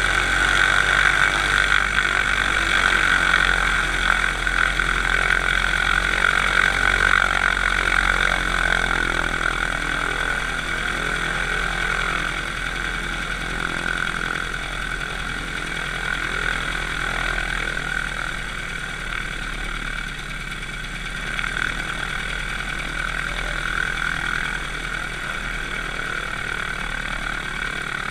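Light aircraft's propeller engine running at low power while taxiing, a steady drone heard close up from on the aircraft. It eases slightly quieter about a third of the way in.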